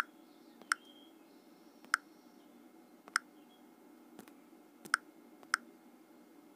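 Key-press clicks from a smartphone's on-screen keyboard as text is typed: about six short, sharp clicks spaced roughly a second apart over a faint steady hum.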